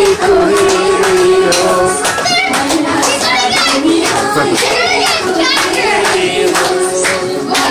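A Nepali Teej song playing loudly with singing, mixed with several people's voices and some hand clapping.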